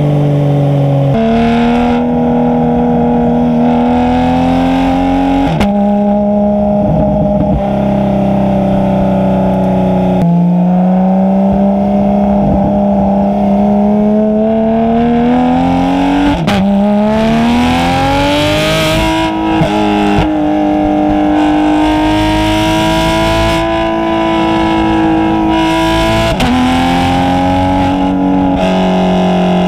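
Porsche 991.2 GT3 RS's naturally aspirated flat-six with a muffler-delete exhaust, driven on the road. The engine note climbs steadily and then changes pitch suddenly at each gear change, about six times.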